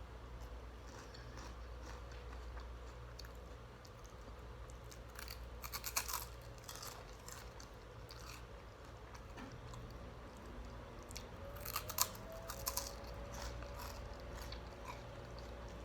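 A person chewing a crunchy snack with the mouth close to the microphone: soft munching with clusters of sharp crunches about five seconds in and again about twelve seconds in, over a steady low hum.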